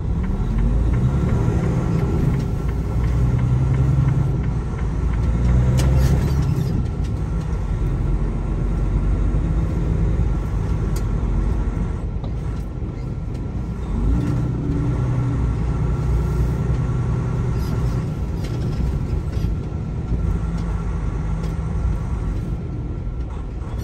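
Semi-truck diesel engine running under way with a trailer, a heavy low rumble whose pitch climbs as it accelerates near the start and again partway through.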